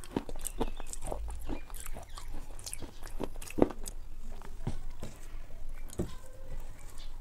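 Close-miked chewing and biting: irregular crunchy clicks and wet mouth sounds, the loudest crunch about three and a half seconds in.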